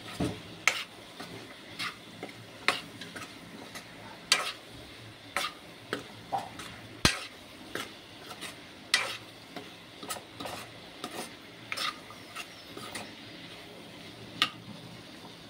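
Metal spoon stirring vegetables and spice masala in a nonstick kadai: irregular clinks and scrapes against the pan, one to two a second, over a low sizzle of frying oil. The coriander and chilli powder is being fried in oil until its raw smell is gone.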